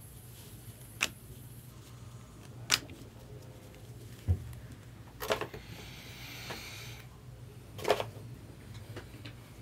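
Trading cards being handled: a few sharp taps and clicks as cards are set down and squared, with a brief rustle of cards sliding against each other about halfway through, over a faint low hum.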